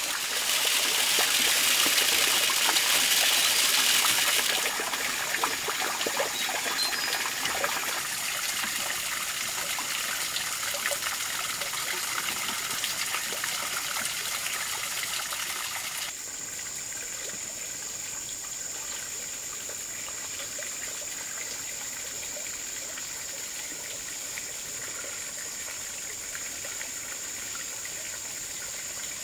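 Water trickling and running steadily, loudest in the first few seconds and dropping in level in steps at about 5, 8 and 16 seconds in, with a faint steady high-pitched tone throughout.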